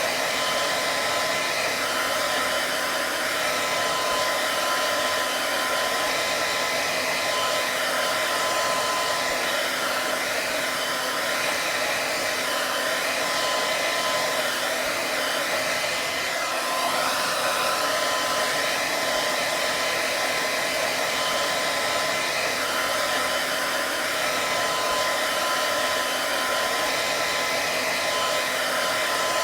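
Hair dryer running steadily: an even rushing blow of air with a thin motor whine, which fades for several seconds midway and comes back.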